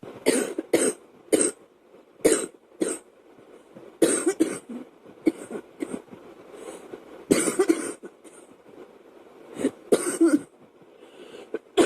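A girl coughing repeatedly: five single coughs in the first three seconds, then short clusters of coughs separated by pauses.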